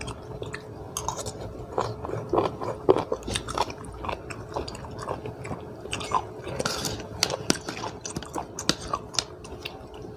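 A person eating spicy seafood papaya salad, chewing and crunching with many short, irregular crunches, a few a second.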